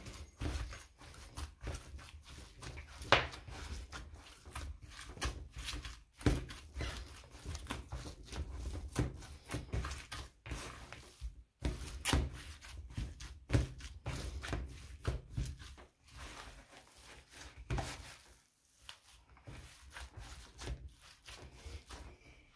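Hand in a plastic glove kneading raw minced meat for kebab in a plastic bowl: irregular squelching and rubbing, broken by a few louder thumps.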